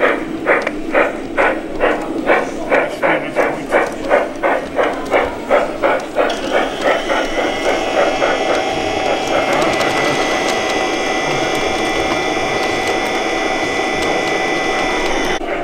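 G-scale model steam locomotive's sound unit chuffing at a steady rhythm, about two chuffs a second. About six seconds in, a steady whirring hum with a high whine from model trains running takes over, and it cuts off abruptly near the end.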